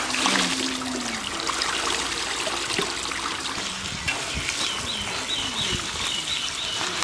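Water pouring from a hose onto cut vegetables in a plastic colander sitting in a pot of water, splashing and trickling steadily as hands stir the vegetables to rinse them.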